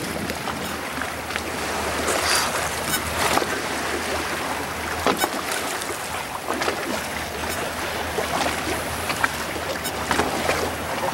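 Boat engine running with a steady low hum under the wash of water against the hull, with a few brief sharp clicks or splashes scattered through.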